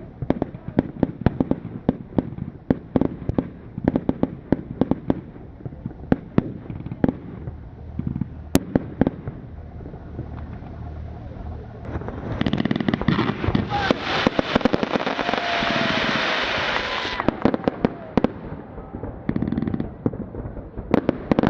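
Fireworks display: rapid, irregular bangs of bursting shells. In the second half a dense crackling hiss builds and runs for about five seconds before the single bangs return.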